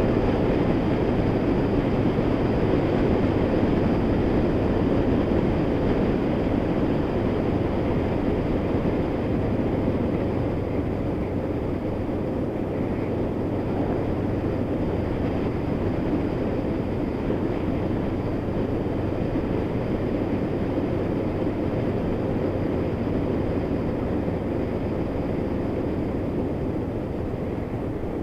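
Honda VFR800's V4 engine running steadily under way, mixed with wind rush on the microphone. The sound is steady and eases slightly over the last half.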